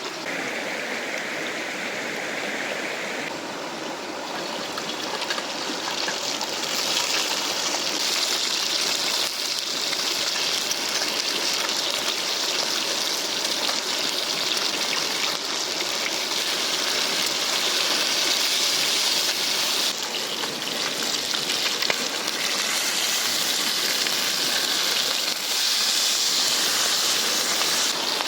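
Steady rush of fast-flowing river water, a dense hiss that shifts abruptly in tone and level a few times and is brightest from about seven seconds in.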